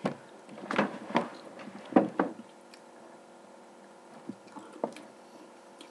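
A quiet room with a few short, soft clicks and smacks, about five in the first two and a half seconds, then two small ticks near the end. These are small mouth and handling sounds as a jelly bean is picked up and bitten.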